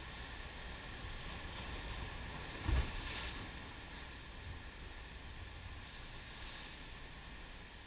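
Surf breaking and washing over black volcanic shore rocks, a steady rush of water, with one louder crash and low thump a little under three seconds in.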